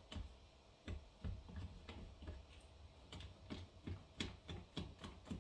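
Small whisk beating oat pancake batter in a plastic bowl, each stroke ticking against the bowl about two or three times a second, quicker and louder in the second half.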